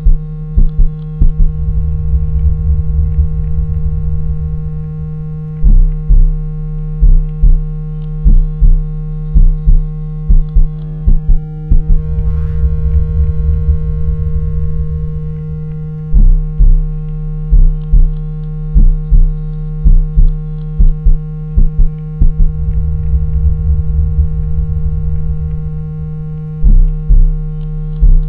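Electronically generated earbud-cleaning tone: a steady low hum layered with several higher steady tones, pulsed by deep thumps about twice a second that alternate with stretches of steady low buzz, under faint slow sweeps that rise and fall.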